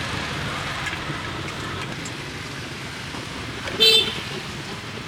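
Steady street traffic noise, with one short, high horn beep about four seconds in.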